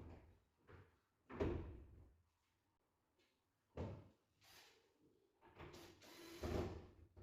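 Knocks and thuds of MDF wardrobe panels being handled: a knock at the start, a louder thud about a second and a half in, another knock a couple of seconds later, then a longer scraping shuffle near the end.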